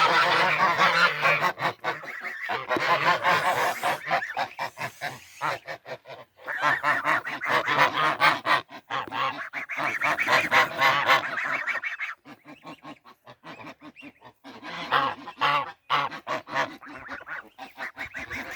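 A flock of geese honking loudly, many calls overlapping. The honking thins out about two-thirds of the way through, then flares up again briefly a few seconds later.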